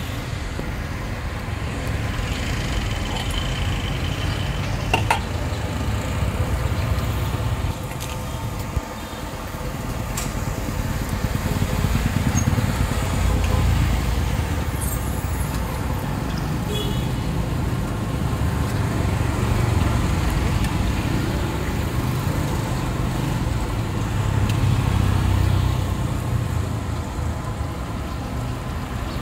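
Low rumble of road traffic that swells and fades, over a faint sizzle of dough frying in a wok of hot oil, with a few light clicks of metal tongs.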